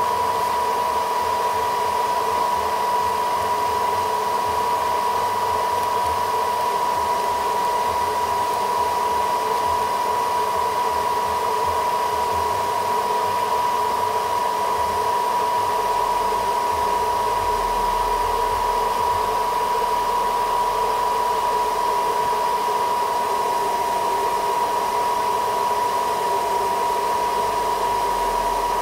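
Hair dryer blowing hot air steadily, with a constant high motor whine over the rush of air. It is warming a smartphone's glass back to soften the adhesive before the panel is pried off.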